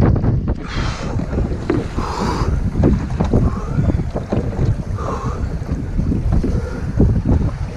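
Strong wind buffeting the microphone on a small wooden sailing skiff under way, with a few hissing splashes of water against the hull.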